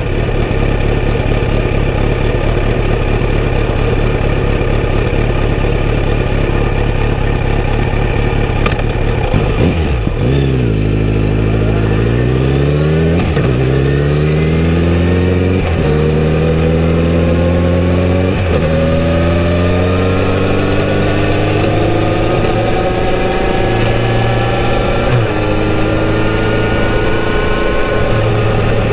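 Kawasaki Z900RS inline-four motorcycle engine idling steadily, then pulling away about ten seconds in and accelerating through three quick upshifts, the pitch rising in each gear. It then settles into a cruise, with the engine speed climbing slowly.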